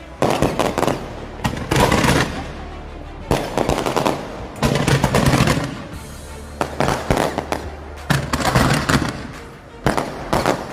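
Fireworks going off in rapid crackling volleys, a cluster of quick bangs every second or two.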